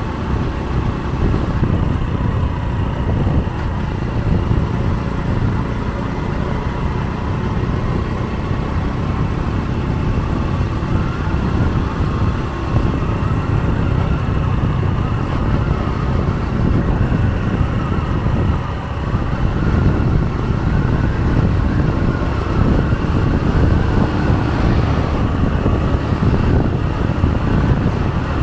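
Steady wind rush and road noise from a motorbike moving at speed along a highway, with its engine running underneath.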